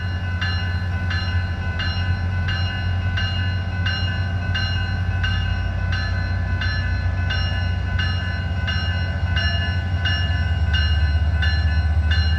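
A bell ringing steadily about twice a second over the low steady rumble of a SunRail MPI MP32PH-Q diesel locomotive, which grows louder near the end.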